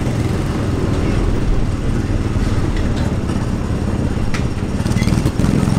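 Small gasoline engine of a Tomorrowland Speedway race car running steadily while driving along the track, a low drone, with a couple of faint knocks in the middle.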